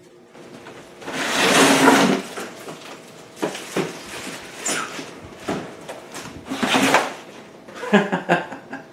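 Cardboard scraping and rustling as a window air conditioner is slid up out of its shipping box. There is one long, loud scrape about a second in, followed by several shorter scrapes and bumps of cardboard.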